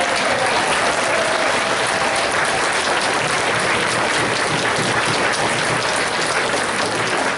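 Audience applauding: a dense, steady clapping of many hands. A voice fades out beneath it in the first second or so.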